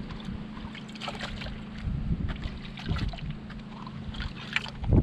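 A steady low engine hum, with scattered small clicks and scrapes over it.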